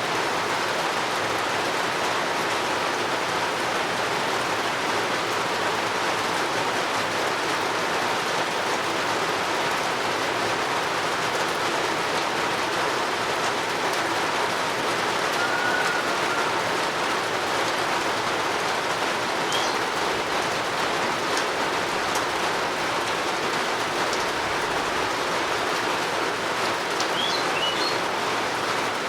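Steady rain falling, an even unbroken hiss, with a few brief faint bird chirps around the middle and near the end.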